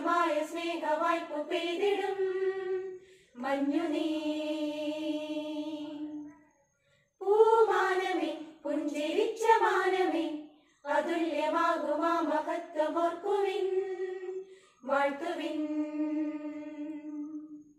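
A small women's choir singing a Christmas carol a cappella in phrases, each ending on a long held note, with short pauses for breath between them.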